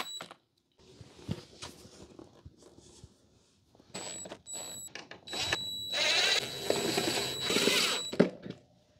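Cordless drill-driver whirring at a steady high pitch as it drives screws. After a few seconds of light clicks from handling parts, it runs in two short bursts about four seconds in, then one longer run of about three seconds.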